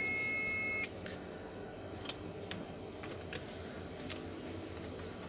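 Digital multimeter's continuity beeper sounding a steady tone for about a second as the probes touch a capacitor, signalling a short on the laptop motherboard's 18-volt line. A few faint clicks of the probes follow.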